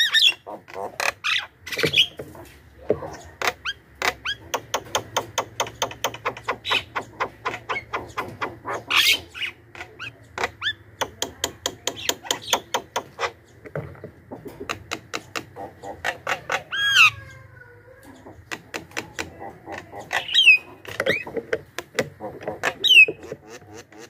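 Javan myna (jalak kebo) in full song: a long, fast run of harsh clicking chatter, about five notes a second, with a few whistled notes that slide down and up in the second half and brief pauses between phrases.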